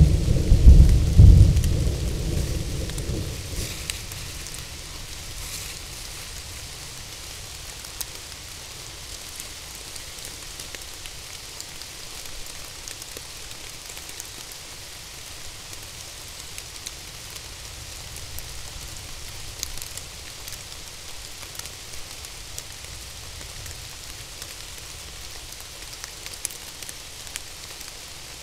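A roll of thunder rumbling and dying away over the first few seconds, then steady rain falling on the forest canopy and leaf litter, with scattered individual drops ticking close by.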